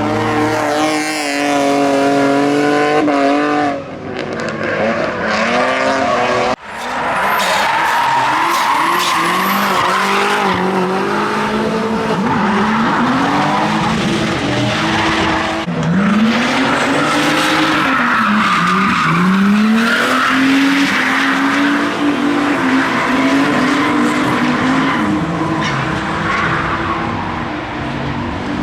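Drift cars at full throttle, engines revving up and down through slides over continuous tyre screech. The sound breaks off abruptly three times and picks up again.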